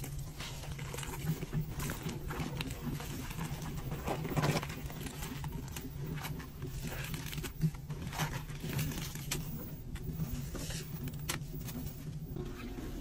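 Top-loading washing machine tub full of sudsy water: a steady low hum under irregular sloshing and squelching splashes.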